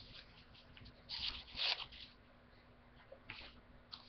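Sheets of origami paper rustling as they are leafed through, with two louder rustles about a second in and fainter ones near the end.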